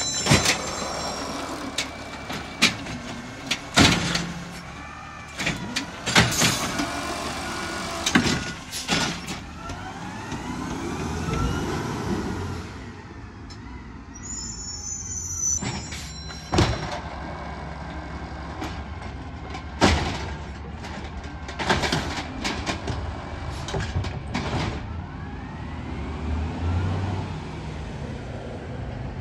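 Automated side-loader garbage truck emptying a curbside cart: the hydraulic arm lifts and shakes it with a run of sharp bangs and clatters, and its hydraulics whine up and down in pitch. The truck's diesel engine runs throughout, with a brief air hiss about 14 seconds in as it moves off.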